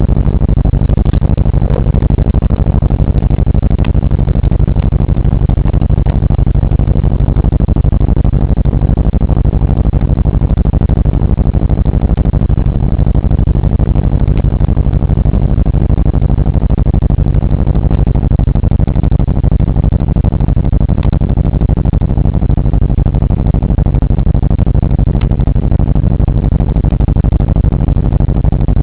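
Steady low rumble of a 1979 Oldsmobile driving, its engine and road noise heard from inside the cabin.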